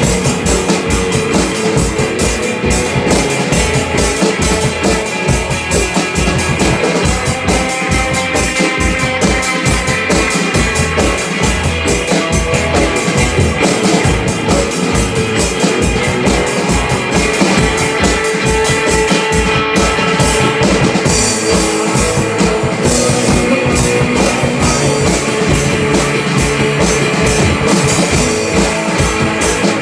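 Instrumental rock music being played, a drum kit with bass drum keeping a steady beat under sustained guitar; the texture changes a little past the middle.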